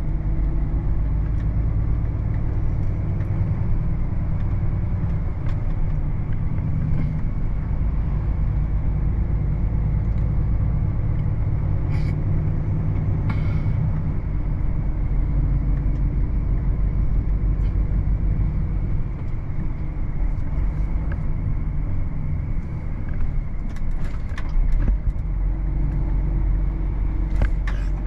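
Volvo FH 540 truck's 13-litre six-cylinder diesel under way, a steady low drone of engine and road noise.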